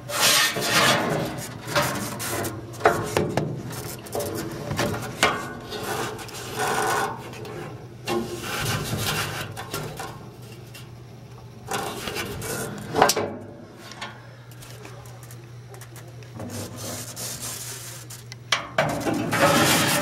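Irregular rubbing and scraping, in bursts every second or so with a couple of quieter stretches, as hands and tools work against the sheet metal and burners inside a gas furnace's burner compartment. A steady low hum runs underneath.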